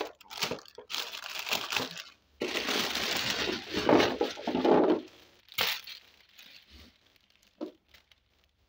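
A clear plastic bag crinkling as it is opened and tipped, with a heap of small plastic toy animals clattering out onto a tabletop. The rustling is loudest about midway, then dies away to a few light clicks as the toys settle.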